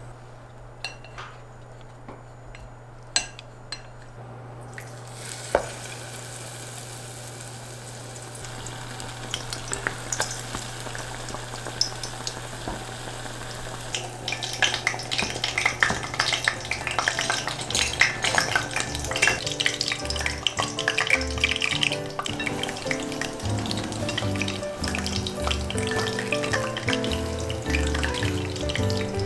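A few clicks of wooden chopsticks against a glass bowl of tempura batter, then battered vegetables deep-frying in hot oil, sizzling and crackling, growing louder about halfway through. Soft background music comes in near the end.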